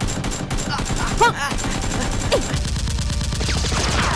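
Rapid automatic gunfire: a continuous fusillade of fast, evenly repeating shots.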